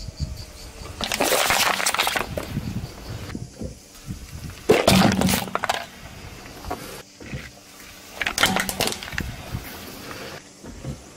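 A car tyre rolling over and crushing small objects on asphalt, three crunches about three and a half seconds apart: a plastic soda bottle crackling flat, then a metal candy tin, then plastic toy bricks snapping.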